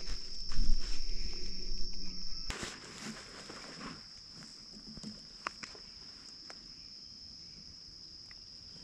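Footsteps crunching and rustling through dry grass and brush for the first couple of seconds, then stopping. Behind them a steady, high-pitched insect trill keeps going unbroken, with a few light clicks of gear handling in the quiet that follows.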